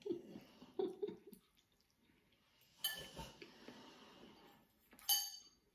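Soft mouth sounds of slurping and chewing noodles, then a metal fork clinking and scraping against a bowl twice: once about three seconds in and once near the end.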